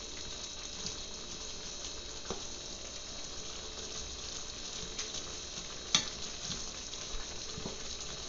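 Sausage and vegetable stir fry sizzling in a pan, stirred with a utensil that clicks and scrapes against the pan now and then, with one sharp knock about six seconds in.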